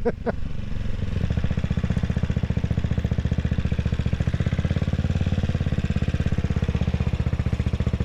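CCM Spitfire Six's 600 cc single-cylinder engine running at low revs in slow traffic, an even, rapid pulsing beat that holds steady throughout.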